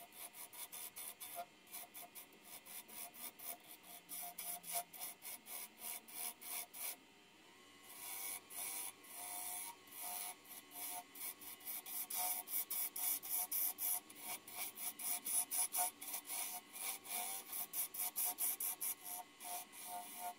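A woodturning gouge being sharpened by hand, stroked back and forth on a sharpening stone or hone. It makes regular rasping strokes about two to three a second, with a short pause about seven seconds in.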